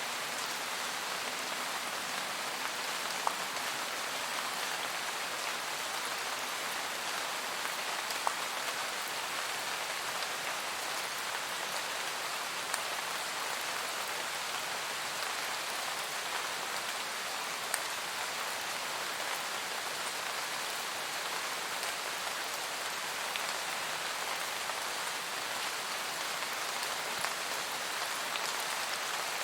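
Steady rain shower falling in a forest: an even hiss of rain on leaves, with now and then a single louder drop striking close by.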